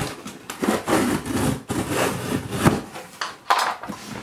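Knife blade slitting packing tape along the seam of a cardboard shipping box, in several separate strokes, then the cardboard flaps being pulled apart near the end.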